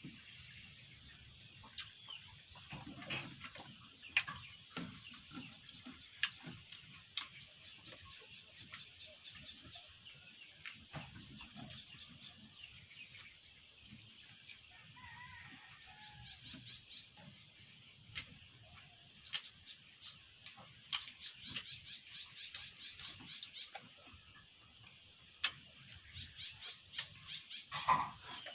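Faint chickens clucking, with scattered clicks and short runs of rapid ticking.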